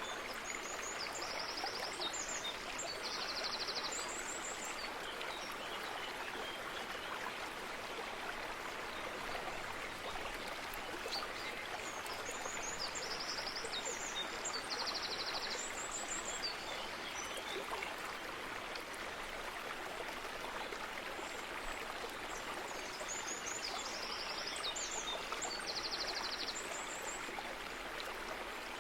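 A stream running steadily, with a small songbird singing the same short, high phrase of rapid repeated notes three times, about every eleven seconds.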